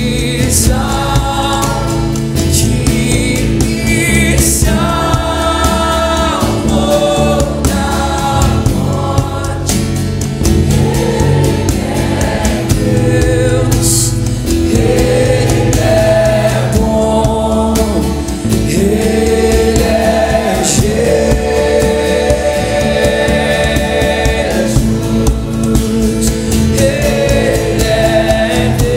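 A group of voices singing a worship song together, accompanied by acoustic guitars.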